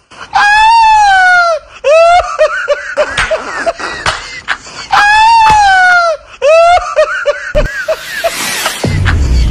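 A man's loud, high-pitched hysterical laughter: a long drawn-out shriek that falls in pitch, then a quick run of short "ha-ha" bursts, the whole pattern heard twice. A low rumble comes in near the end.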